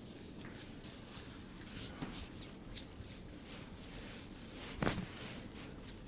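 Soft rustling and shuffling of hands, clothing and body moving on a treatment table during a chiropractic session, with one sharper knock about five seconds in.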